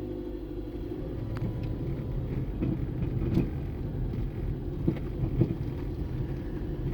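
Car driving over a rough road with a steady rumble and several short, sharp clunks from underneath as it goes over bumps. The owner says the clunk is possibly a CV axle, since the suspension parts are all new.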